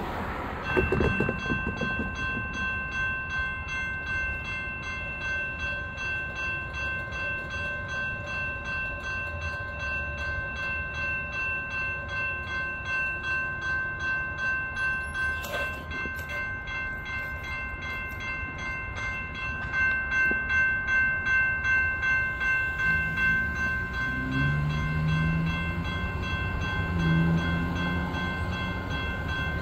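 Railroad grade-crossing warning bell starts up about a second in and rings on in a steady repeated pattern as the crossing signals activate. Near the end, lower tones and a rumble from an approaching light rail train join in.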